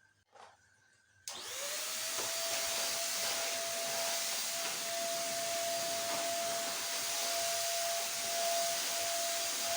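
Vacuum cleaner switched on a little over a second in, its motor quickly spinning up, then running steadily with a loud hiss and one steady whining tone.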